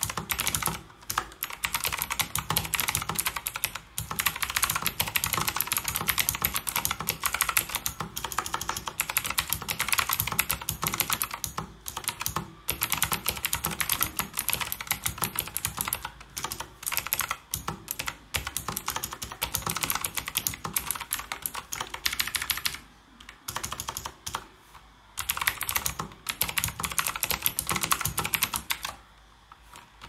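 Fast typing on a Royal Kludge RK S108 mechanical keyboard with clicky blue switches and round, flat ABS double-shot keycaps: a dense run of keystroke clicks that thins to sparser strokes about two-thirds through, picks up again, then stops briefly near the end.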